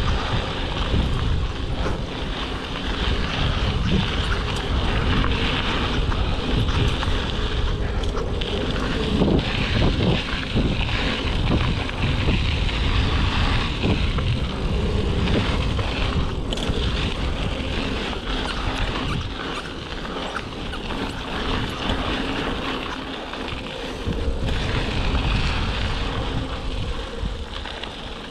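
Mountain bike rolling fast over a dirt and gravel trail: a steady rush of tyre noise and frame rattle, with wind buffeting the GoPro's microphone. The noise eases off near the end.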